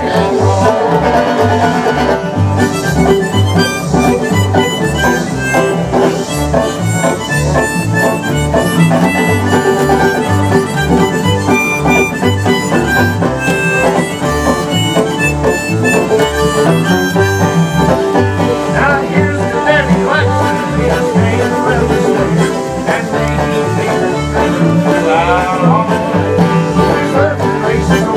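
Old-time string band playing an instrumental break: acoustic guitar, fiddle and banjo over a steadily plucked upright bass, with a rack-held harmonica carrying the melody.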